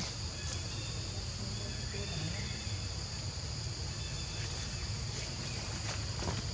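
Steady high-pitched drone of an insect chorus, over a constant low rumble of outdoor background noise.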